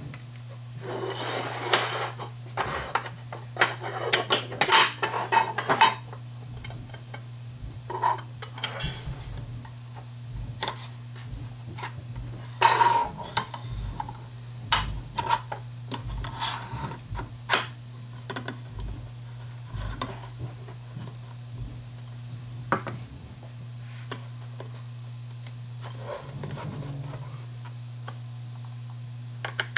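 Metal curtain track sections and fittings being handled and slid together on a wooden bench: irregular clinks, knocks and scrapes, busiest in the first several seconds, over a steady low hum.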